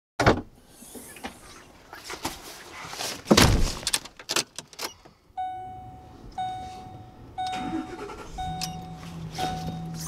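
Knocks and thuds inside a car, the loudest a heavy slam about three seconds in, then the car's warning chime dinging about once a second from halfway through; a low steady hum joins near the end.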